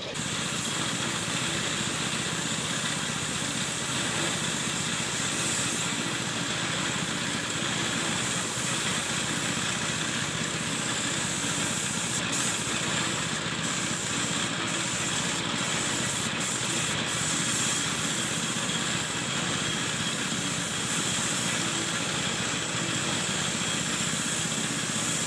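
Gravity-feed spray gun hissing steadily as compressed air atomises clear coat onto a car's painted body panels.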